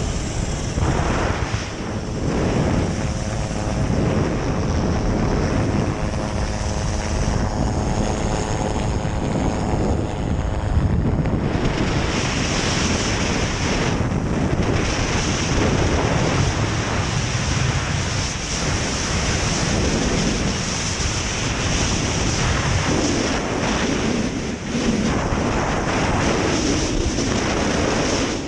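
Strong storm wind buffeting the microphone, with a helicopter's engine and rotor running steadily.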